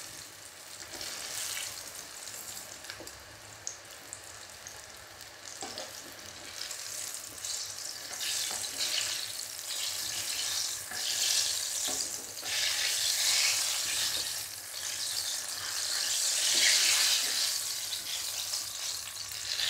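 Eggplant slices deep-frying in hot oil in a wok, sizzling steadily as the cooked pieces are scooped out with a wire mesh skimmer and slotted spoon, with a few light knocks of the metal utensils. The sizzle grows louder in the second half.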